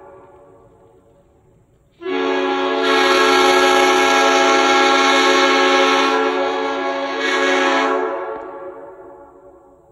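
Leslie S5 five-chime air horn, retuned with 277 and 330 bells to sound the S5D chord (the same chord as a Nathan M5), blowing one loud blast of about six seconds that starts abruptly about two seconds in. The chord sags slightly and swells again near the end, then cuts off, and the sound dies away over about two seconds. At the start, the fading tail of an earlier blast is heard.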